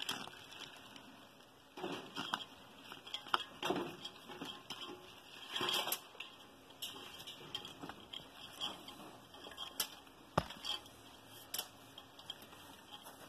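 Soft, irregular rustling and patting as handfuls of boiled basmati rice are spread by hand across a metal pot, with a single sharp tap about ten seconds in.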